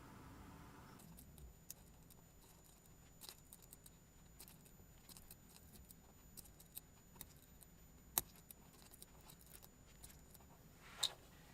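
Small metal parts being handled during assembly of a miniature engine kit: scattered light clicks and taps, a sharp click about eight seconds in, and a short scrape near the end. A low hum stops about a second in.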